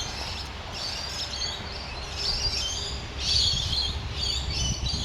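Several birds chirping and calling in short, overlapping bursts of high notes, over a steady low rumble.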